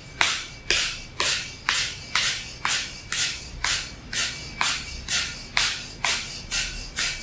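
Kapalabhati breathing: a woman's short, forceful exhalations through the nose, each a sharp hiss, repeated at a steady pace of about two a second as the belly pumps.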